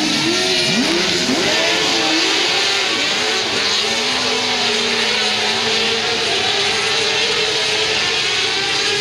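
Crosskart engines revving hard as the karts race on a dirt track, several engine notes rising and falling and overlapping as drivers accelerate and lift through the corners.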